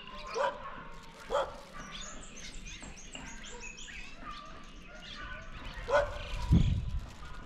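A dog barking, three single barks about a second apart and again near the end. A bird chirps in a quick series in between, and a low rumble just after the last bark is the loudest sound.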